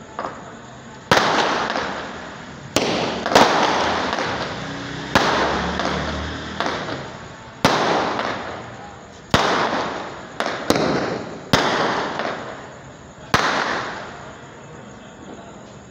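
Aerial firework shells bursting overhead: about a dozen sharp bangs at irregular intervals, each trailing off in a long echoing rumble.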